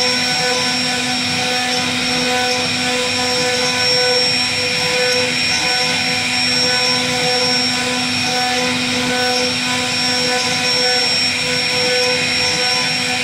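CNC router spindle running at speed with its bit cutting a relief carving into a wooden door panel: a steady whine of several pitches over the hiss of the cut.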